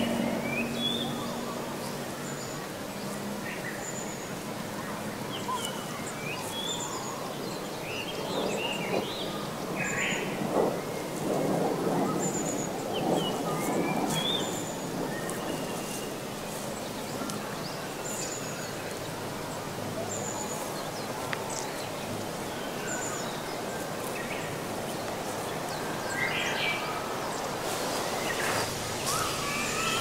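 Woodland ambience with small birds chirping and calling, one repeating a short high note every second or two, over a steady outdoor hiss.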